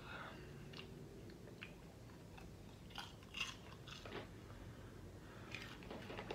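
A person chewing popcorn: faint, irregular crunches, loudest about three seconds in.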